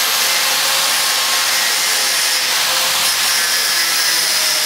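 Welding on a bicycle, a steady hiss that goes on without a break.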